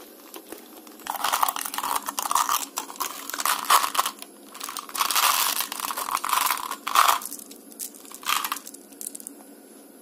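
Crunching and crinkling noises in uneven bursts, starting about a second in and dying away after about eight and a half seconds, as the chewing gum balls and their packaging are handled and tried.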